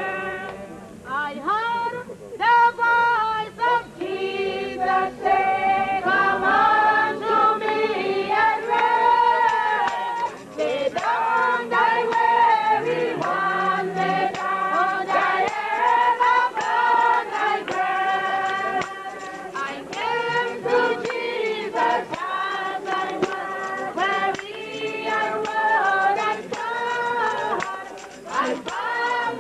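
Many voices singing a hymn together, choir style, in long held notes, with a short break in the phrase about ten seconds in and again near the end.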